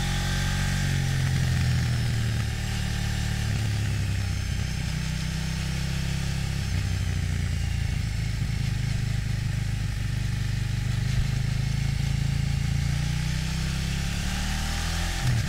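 KTM 790 Duke's LC8c parallel-twin engine with its stock exhaust, recorded onboard, running steadily at low revs as the bike rolls slowly. The revs start to rise right at the end.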